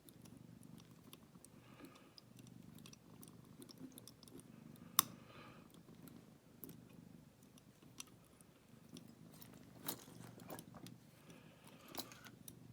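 Faint metallic clicks and scrapes of wire picks working the levers inside an ERA 5-lever padlock, with one sharper click about five seconds in and a few more near the end.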